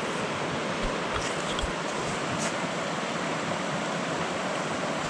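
Steady rushing of a small mountain stream's riffle, an even hiss of moving water, with a few faint ticks over it.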